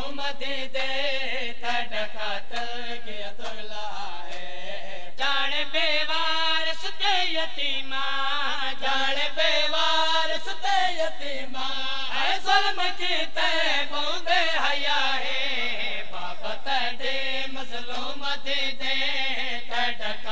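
A male voice chanting a noha, a mournful lament, in long melodic lines. A crowd of mourners beats their chests (matam) along with it in steady, even strokes.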